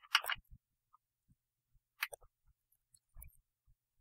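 A few faint, scattered clicks of computer keys, pressed to delete characters in a code editor, with a brief low thump a little after 3 seconds in.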